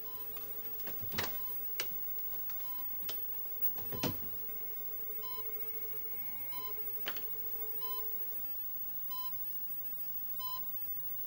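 Electronic beeps from laboratory monitoring equipment: short tones repeating about once a second at uneven spacing, over a low steady tone that breaks off now and then. A few sharp clicks come in the first half.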